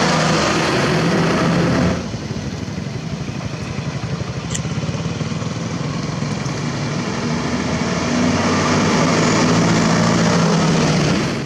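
Heavy diesel truck engines running. A close engine drones loudly for about two seconds, then the sound cuts to a rumbling truck engine that grows louder from about eight seconds in as the truck comes close.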